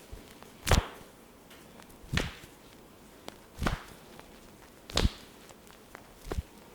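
Massage cracking strokes, hands snapping on skin: five sharp cracks, evenly spaced about a second and a half apart.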